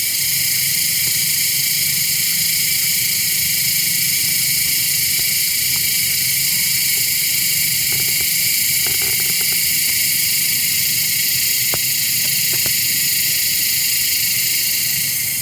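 Loud, steady chorus of cicadas: a continuous shrill buzz with no breaks.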